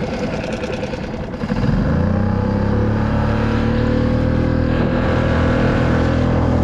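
Small outboard motor on a Solo Skiff throttled up about a second and a half in, then running steadily at speed.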